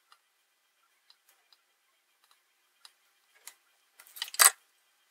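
Soldering work on a small circuit board: faint, scattered small clicks and ticks as the iron tip and solder wire touch the pads. About four seconds in there is a brief, louder scrape or clatter of handling.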